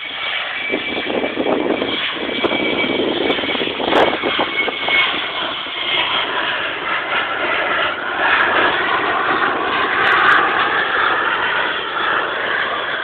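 Jet aircraft passing overhead: a steady rushing engine noise with a thin high whine in the first few seconds, swelling a little past the middle.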